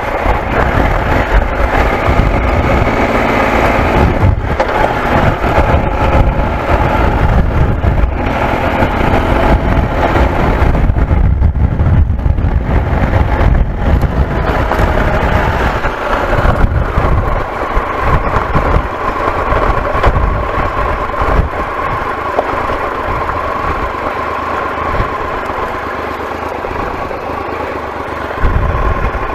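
Triumph Explorer motorcycle's three-cylinder engine running as the bike is ridden, its note rising and falling with the throttle over a heavy low rumble; in the last third it settles to a steadier, slightly quieter note.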